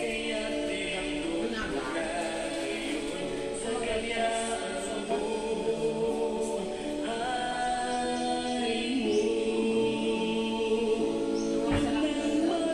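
Background music: a choir singing a cappella in long held chords.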